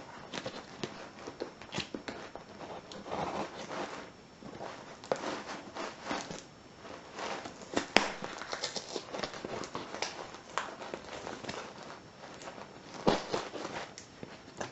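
Packaging being handled and unwrapped by hand: irregular rustling and crinkling with scattered sharp clicks and knocks, the sharpest about eight seconds in and again near thirteen seconds.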